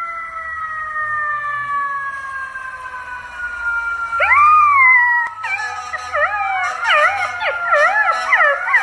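Golden retriever puppy howling: a first rising-and-falling howl about four seconds in, then a run of wavering, looping howls. Under it runs a long, steady tone that slowly falls in pitch, like a siren.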